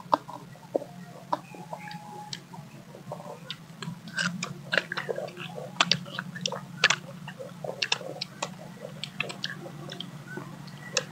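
Close-up chewing and crunching of firm mango slices: many small crisp bites and mouth clicks, busiest around the middle, over a steady low hum.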